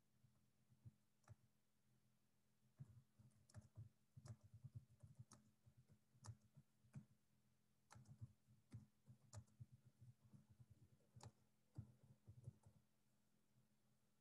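Faint, irregular clicking from someone working at a computer, in short runs with gaps, over a faint steady hum.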